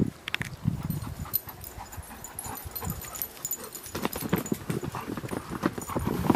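Dogs playing in a group, their running footfalls and scuffling heard as an irregular string of light knocks that grows busier in the last couple of seconds.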